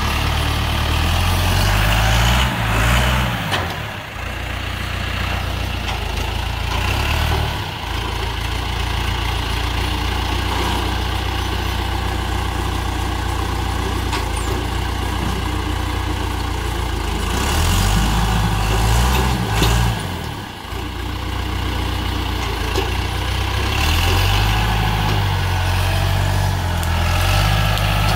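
68-horsepower John Deere diesel tractor engine running under load as it moves through brush, its note rising and falling a few times as the load changes.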